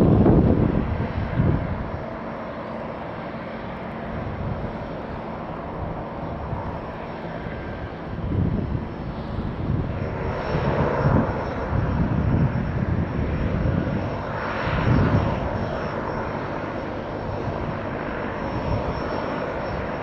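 De Havilland Canada DHC-6-300 Twin Otter's twin Pratt & Whitney PT6A turboprops running as it taxis: a steady engine whine with swells of low rumble. A thin high whine stands out in the second half.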